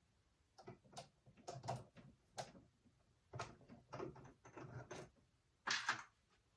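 Irregular knocks, taps and scrapes as a zero clearance insert plate is handled and fitted into the cutout of a drill press platform, the loudest knock near the end.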